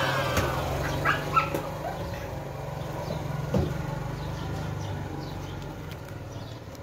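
Motor scooter engine running as it rides away, fading steadily. A few short high yelps come about a second in.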